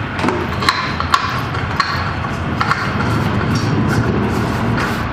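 A new spin-on oil filter being threaded onto the mower engine by hand: a handful of light, sharp metallic clicks and taps, spread irregularly, over a steady low background noise.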